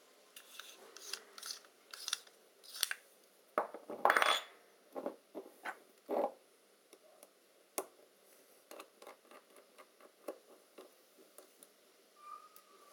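A Helios 44M-6 metal camera lens being handled on a hard table: a string of small clicks, taps and scrapes, the loudest a short clatter about four seconds in, with scattered lighter ticks later.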